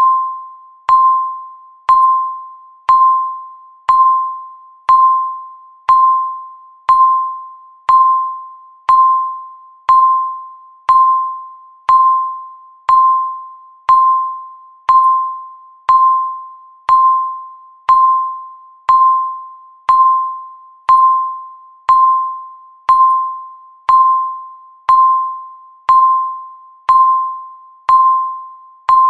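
Countdown timer beep: a single clear electronic tone sounding once every second, each beep starting sharply and fading away, in an even unbroken rhythm.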